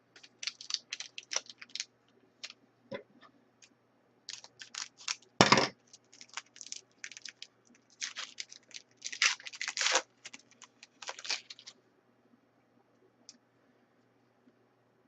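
Crinkling and tearing of a hockey card pack wrapper and cards being handled: irregular short crackles and clicks, the loudest about five and a half seconds in, dying away near the end.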